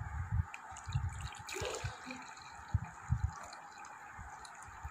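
Lukewarm milk pouring from a steel pot into a glass bowl as the bowl fills, with a few soft low thumps.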